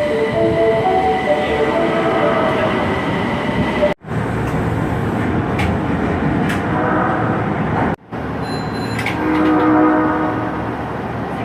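Osaka Metro 22 series subway train sounding its odd, off-sounding horn in short edited clips: a horn blast of several tones at once in the first couple of seconds and another near the end. Between them is train running noise with clicks from the wheels.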